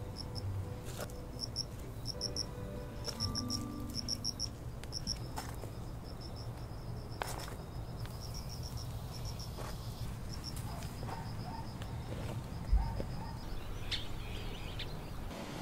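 An insect chirping in short, rapid pulses, repeated in little groups, over a low steady outdoor background. There are a few faint clicks, and one low thump near the end.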